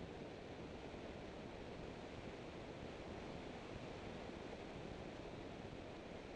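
Steady rushing wind and road noise from a car travelling at around 100 mph, with no distinct engine note.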